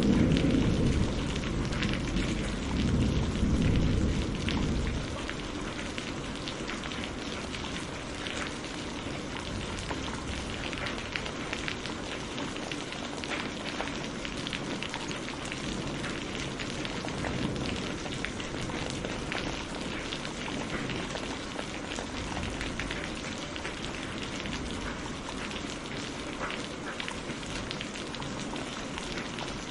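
Steady rain falling, an even hiss dotted with many small drop ticks. At the start a low rumble of thunder dies away over the first five seconds or so.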